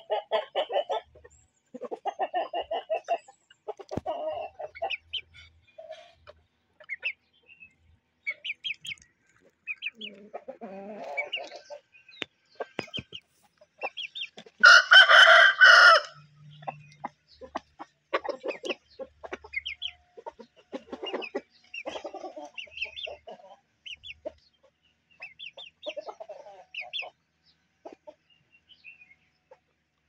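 Aseel chickens clucking in short runs of rapid pulses, with one loud rooster crow lasting about a second and a half about halfway through.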